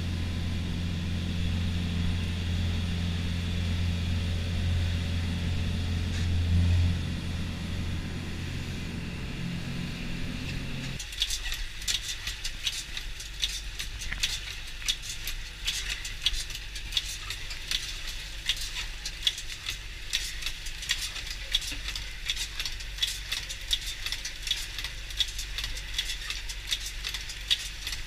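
Fishing boat's engine running steadily under way with a low drone. About eleven seconds in it gives way to rapid, irregular clicking and rattling as the longline's hooks run through the Oilwind baiting machine while the line is set out.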